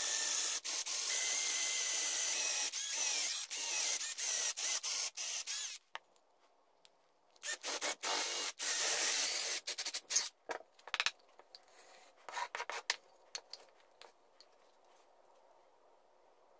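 A drill bit boring holes into a wooden block, cutting noisily in two spells, the first about six seconds long and the second shorter. Scattered clicks and taps follow, then near silence for the last few seconds.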